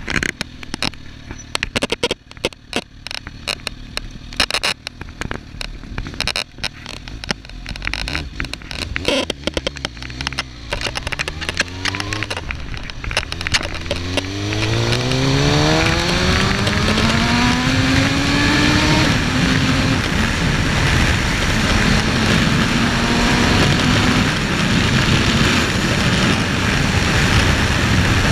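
Suzuki GSX-R1000 inline-four motorcycle engine, first idling low under dense crackling and scraping noise from a faulty recording. About twelve seconds in it pulls away, its note rising steadily for several seconds, then dropping at a shift up and holding steady. Wind noise rushes over the microphone.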